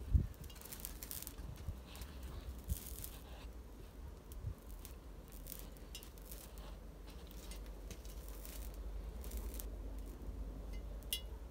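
Horsehair crackling and hissing in short, scattered bursts as it is pressed with metal tweezers onto a hot raku-fired pot and burns onto the surface, over a steady low rumble.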